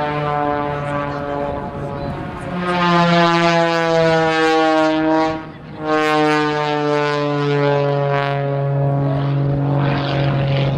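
Piston engine and propeller of an aerobatic biplane droning loudly overhead, the pitch sliding a little as it manoeuvres. About halfway through the note drops away for a split second, then comes straight back.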